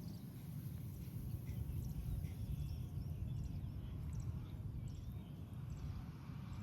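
Small birds chirping faintly in short, scattered calls over a steady, fluctuating low rumble.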